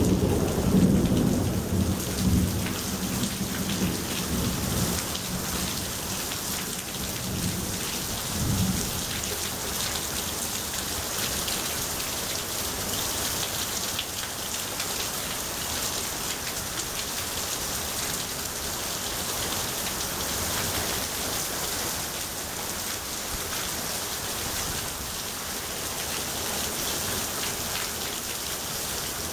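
Heavy rain falling and splashing steadily in a thunderstorm. A loud rumble of thunder fills the first several seconds, swells again about eight seconds in, then fades, leaving the steady rain.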